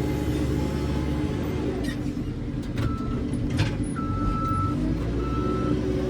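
JCB 3CX backhoe loader's diesel engine running steadily under load, with a few sharp knocks about two to three and a half seconds in. From about three seconds in, a high reversing alarm beeps repeatedly.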